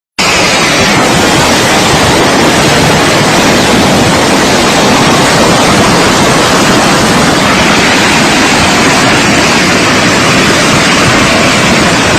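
Loud, steady rushing noise of a raging flood, water surging without a break, cutting in abruptly at the start.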